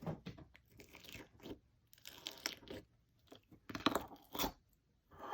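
Clear slime with foam balls being squished and stretched by hand, giving crunchy crackles and small pops in several irregular bunches.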